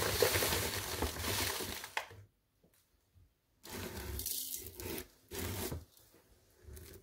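Plastic bag of Epsom salt crinkling as it is handled for about two seconds. Then disposable plastic gloves rustle in two short spells as the hands are brushed off.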